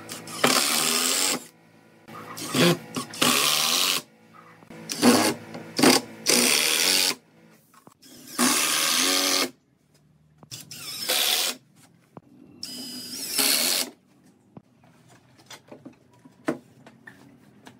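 Cordless power driver driving screws into a wooden frame in repeated bursts of about a second each, stopping and starting several times.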